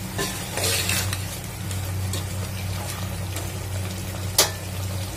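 Slotted metal spatula stirring chicken in masala in an aluminium pot, scraping and clinking against the pot while the food sizzles. A sharp clink about four seconds in is the loudest sound, over a low steady hum.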